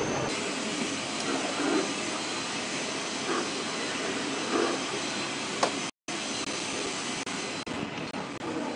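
Steady rushing noise of aircraft engines running. It cuts out for an instant about six seconds in, then carries on.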